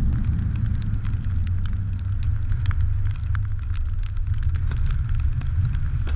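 Wind buffeting a camera microphone held at the surface of choppy water: a steady low rumble, with many small sharp ticks of water splashing and dripping against the camera.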